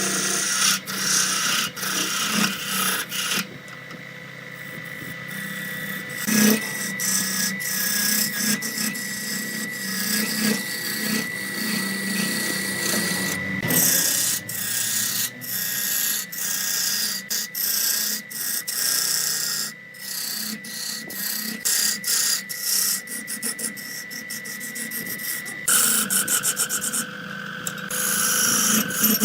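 Wood lathe running with a steady motor whine while a turning tool scrapes and cuts the spinning wood, in uneven, broken passes.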